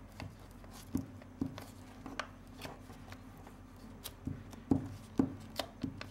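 Glue stick rubbed and pressed along paper flaps on a hard tabletop, giving a string of short, sharp taps and knocks, more of them in the second half.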